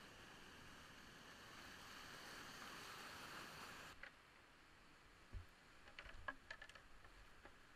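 Faint steady rushing of whitewater in a big-water rapid, heard from a kayak, which cuts off suddenly about four seconds in. Then a few sharp clicks and knocks as the plastic kayak and paddle bump against boulders.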